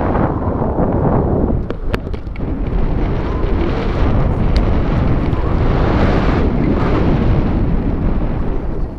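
Airstream buffeting a camera microphone during a tandem paraglider flight, a loud, rumbling wind noise that eases for a moment about a second and a half in, with a few faint clicks about two seconds in.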